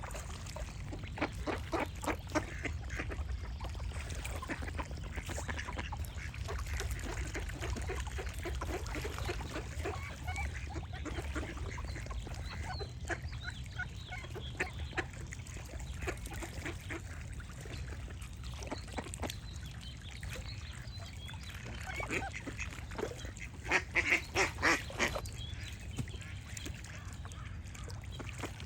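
Ducks quacking in short, repeated calls, with a louder run of quacks near the end, over a steady low background rumble.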